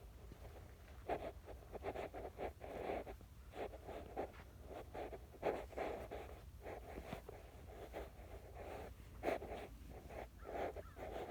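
Irregular scuffing and rustling of footsteps and handling noise from someone walking with a handheld phone, with a few sharper clicks, over a steady low rumble.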